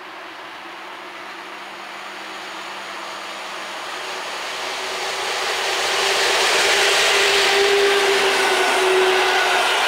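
EP07 electric locomotive hauling a passenger train, approaching and passing: a rising rush of wheel and rail noise with a faint steady tone, growing loud about six seconds in as the locomotive reaches the microphone and the coaches roll by.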